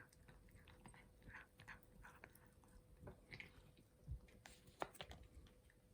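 A cat chewing crunchy treats: faint, irregular crunches and clicks, several a second.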